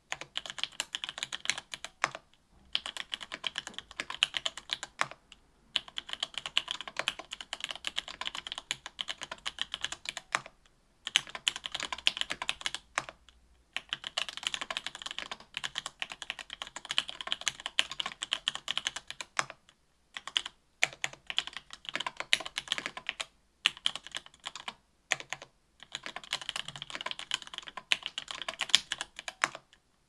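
Mechanical keyboard typing: an AL.BOK with stock SP-Star Nana 65 g linear switches on an aluminium plate, under GMK keycaps, the keys clacking in quick runs broken by several short pauses.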